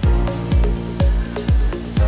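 Background electronic dance music with a steady kick-drum beat, about two beats a second, over sustained synth tones.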